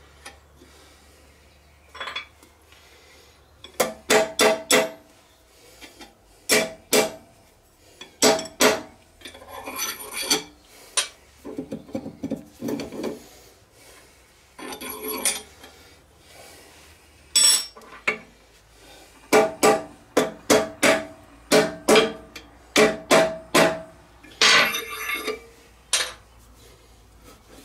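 Metal knocks with a ringing note, mostly in quick runs of three to five blows, with scraping between the runs: a brass drift being tapped against a cast-iron tractor steering box.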